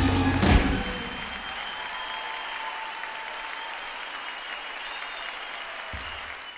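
A live band's song ends on a final hit about half a second in. A large audience then keeps up steady applause.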